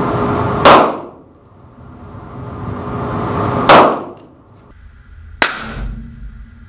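.40 S&W pistol fired twice about three seconds apart, a ball round and then a Federal HST hollow point: each a loud crack that dies away quickly in the range. A third, sharper but quieter crack comes about five and a half seconds in.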